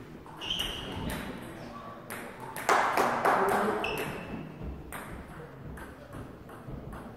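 Table tennis balls clicking irregularly off tables and bats in a sports hall, some with a short ringing ping. A louder burst of noise comes about three seconds in.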